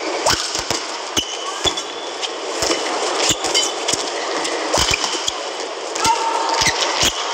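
Badminton rally: racquets strike the shuttlecock in sharp, irregular cracks, and shoes give short squeaks on the court, over the steady noise of an arena crowd.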